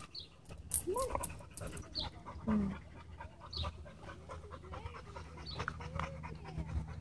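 A bulldog-type dog panting.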